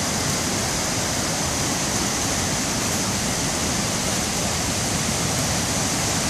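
A rain-swollen stream and waterfall rushing, one steady, unbroken noise of heavy flowing water. The water is running very high after days of rain: the waterfall is raging.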